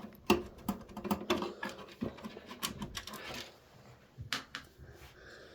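Screwdriver backing out a motherboard screw from a Dell Optiplex 3020 small-form-factor PC: a run of small, irregular clicks and ticks.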